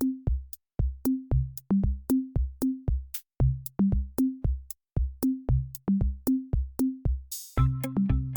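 Electronic background music: a drum-machine beat with deep bass notes in a steady repeating pattern. About seven and a half seconds in, a swell like a cymbal leads into a fuller section with more instruments.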